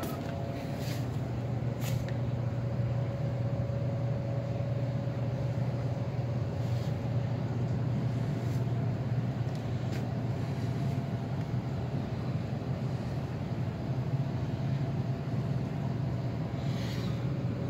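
Steady low mechanical hum with a faint steady whine above it, from the commercial refrigerated display cases and room ventilation running. A few light clicks sound in the first ten seconds.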